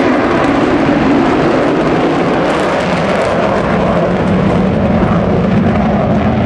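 F-15 fighter jet's twin engines running loud and steady as it flies past, a deep rumble whose pitch slowly falls.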